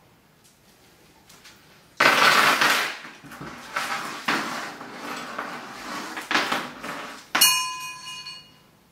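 Steel chain rattling and clinking as it is let drop and worked into the jaws of a bolt cutter, starting suddenly about two seconds in. Near the end comes a sharp metallic clank that rings on for about a second.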